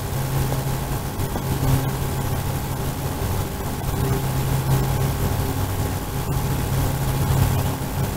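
A steady low hum of an engine or motor running without change, with a faint noisy hiss over it.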